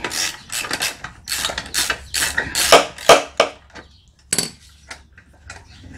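Socket ratchet working the muffler bolts out of a Craftsman push mower's engine: a run of quick, uneven metal ratcheting strokes, then a single sharp clink about four and a half seconds in.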